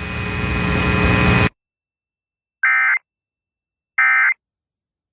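A steady electronic hiss and hum that cuts off about a second and a half in. After a pause come two short, identical bursts of warbling digital data tones about a second and a half apart: the Emergency Alert System end-of-message (EOM) code that closes the alert.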